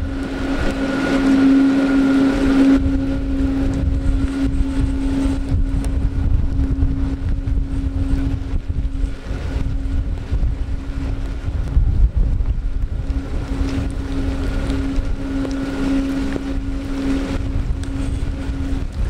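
Boeing 777-281 twin jet engines at taxi power, a steady, even whine that is strongest for the first few seconds and then fades slightly. Wind buffets the microphone as a low rumble throughout.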